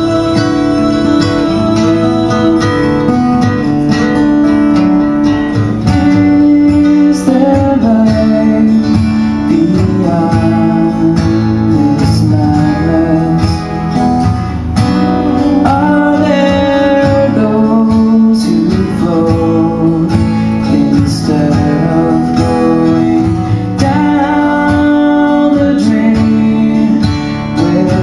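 Acoustic guitar playing with a man singing along into a microphone, a song performed live.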